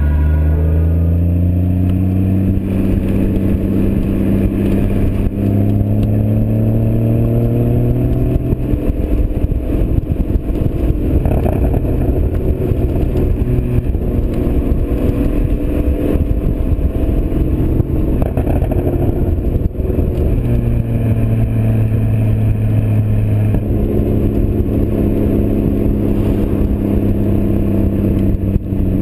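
2016 Porsche Boxster Spyder's 3.8-litre flat-six engine running while driving, its pitch rising slowly over the first several seconds. It turns rougher and noisier through the middle, then settles back into a steady drone.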